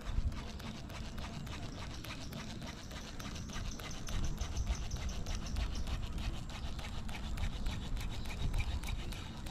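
Baitcasting fishing reel being cranked, a fast even run of ticks with a faint high whir through the middle, over a low rumble.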